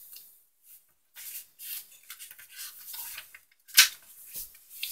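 Paper instruction booklet being handled and its pages leafed through: dry rustling with a sharp tap or snap about four seconds in.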